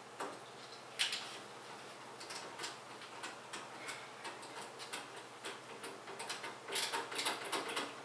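Irregular small clicks and ticks of a screwdriver driving screws and of parts being handled in a computer case. The clicks come in a denser flurry near the end.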